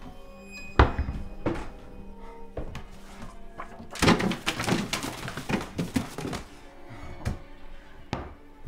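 Someone rummaging through wooden kitchen cabinets: a sharp thunk of a cabinet door or item about a second in, then a busy spell of rustling and clattering from handled packages, and a couple more knocks near the end. A low music score runs underneath.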